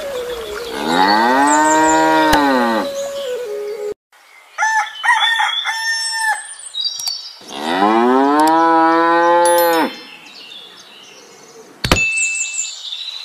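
A cow mooing twice, two long moos that rise and then fall in pitch, the second about seven seconds in. Short higher ringing tones come between them, and a sharp click near the end.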